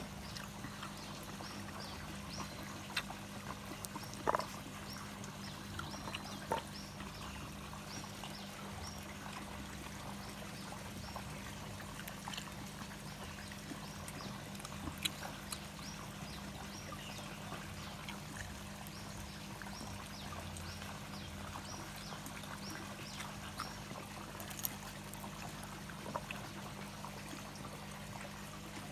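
Steady pouring, trickling water at a fish pond, with a few soft clicks scattered through and a rapidly repeated high chirp over the first several seconds.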